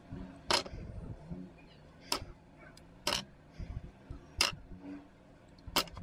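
Grey plastic model-kit parts being twisted and snapped off their sprue by hand: five sharp plastic snaps at irregular intervals of about a second or so.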